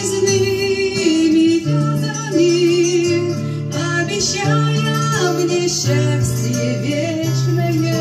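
A woman singing into a handheld microphone, amplified through a portable loudspeaker, over accompaniment with guitar. Her long sung notes glide between pitches over a steady bass line.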